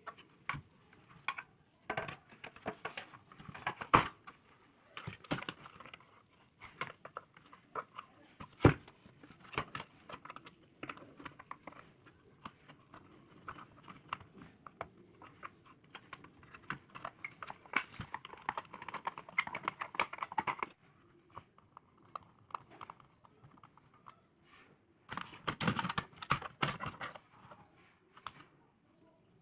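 Handling noise from a plastic LED emergency light case being opened and worked on: many scattered clicks, knocks and rustles of plastic parts and wires, with two sharper knocks about 4 and 9 seconds in.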